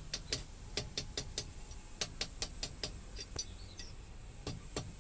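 Light hammer taps on iron at the anvil: a quick, irregular series of short, sharp metallic clicks, pausing for about a second near the end before a few more.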